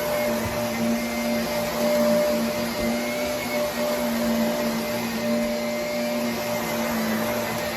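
Vacuum cleaner running steadily: a constant hum with a held tone over a rushing of air.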